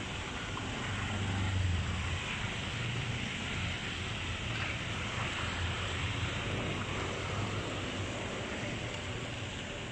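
Steady rush of floodwater pouring into a partly clogged roadside culvert as trash is raked from its mouth, with a low, uneven rumble of wind on the microphone.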